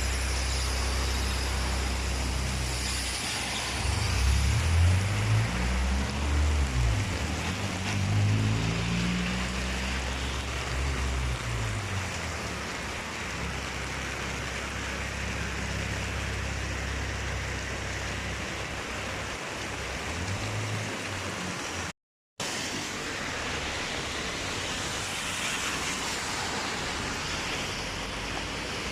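Steady heavy rain pouring down during a hurricane, with a motor vehicle's engine rising and falling as it passes in the first few seconds. The sound drops out for a moment about two-thirds of the way in.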